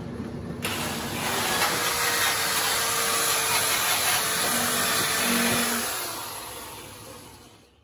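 Die grinder with a small sanding disc running steadily against the steel floor pan of a car body, taking the paint off down to bare metal. It starts about half a second in and fades out near the end.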